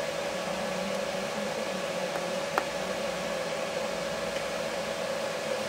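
Steady hiss with a constant hum, room noise of a machine such as a fan or air conditioner, with a single faint click about two and a half seconds in.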